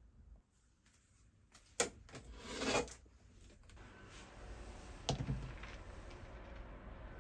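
Handling sounds on a kitchen counter: a sharp click followed by a brief scraping rub, then another click about five seconds in as a glass bottle is lifted off the countertop.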